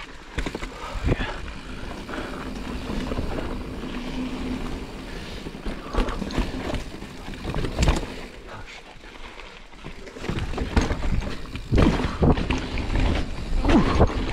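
Giant Reign 29 mountain bike riding down rocky singletrack: steady tyre and wind rumble on the camera microphone, broken by knocks and rattles of the bike over rocks. It gets rougher and louder about two-thirds of the way in.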